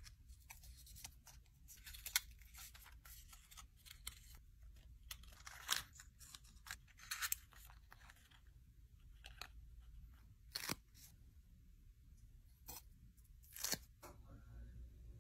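Quiet close-up handling of a miniature plastic figure and its small card and plastic packaging: scattered soft rustles and light taps, with a handful of short, sharper clicks standing out.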